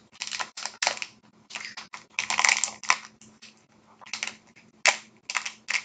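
Small sealed mystery-pin baggie crinkling and rustling in irregular bursts as it is tugged and twisted without tearing open, the loudest crinkles about two and a half seconds in and just before five seconds.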